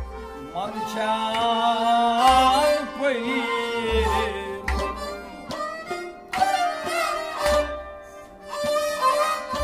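Traditional folk music: a harmonium and a bowed string instrument playing a melody together, with a few deep low thuds under them.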